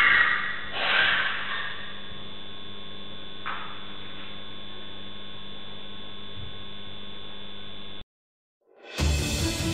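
Steady electrical hum from a security camera's microphone, with a brief harsh noise about a second in and a fainter one a few seconds later. The hum cuts off abruptly near the end, and music starts.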